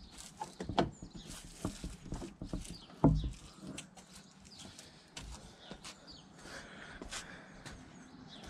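Scattered clicks and knocks of plastic trim being handled and pushed into place on a car's scuttle area, with one louder knock about three seconds in.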